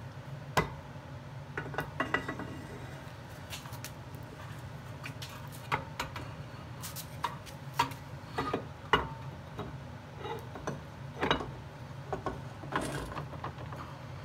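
Scattered metal clicks and clanks as a rear axle shaft's hub and bearing assembly is handled and fitted into the end of a bare axle housing, about a dozen sharp knocks spread unevenly. A steady low hum runs underneath.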